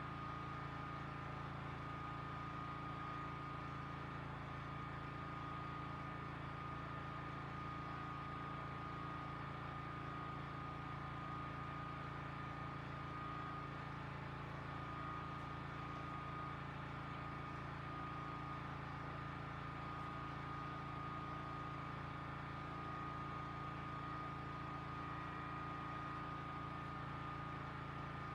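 Generator running steadily in the background: a constant low hum with a thin, higher steady tone above it.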